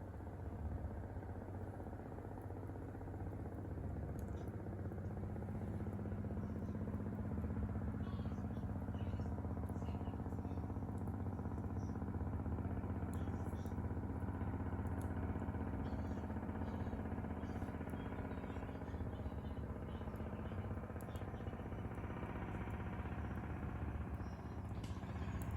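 An engine running steadily: a low, even hum that grows slightly louder a few seconds in, with a few faint clicks over it.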